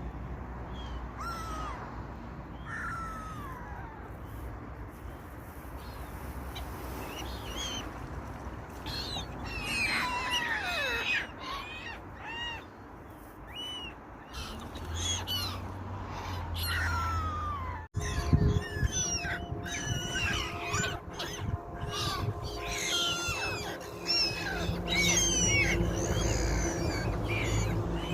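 Many birds calling at once, a busy mix of short chirps and falling calls, over a steady low rumble. Near the two-thirds mark the sound breaks off abruptly and resumes, with a steady hum added underneath.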